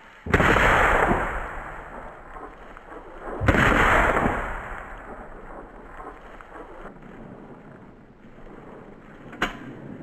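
Two shotgun shots at a flushed quail, about three seconds apart, each trailing off in a long echo. A short sharp click comes about nine seconds in.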